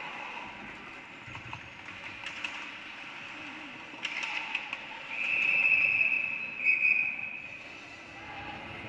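Ice hockey rink sounds: sharp stick-and-puck clacks around a scramble at the net, then a referee's whistle blown in a long shrill blast and a short one, stopping play.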